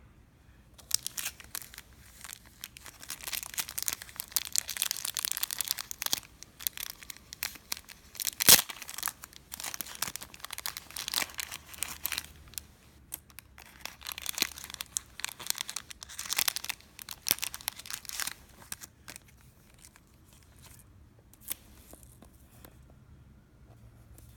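Clear plastic packaging crinkling and rustling as it is handled and opened by hand, with one sharp crack about eight seconds in. The crinkling stops a few seconds before the end, leaving only a few light clicks.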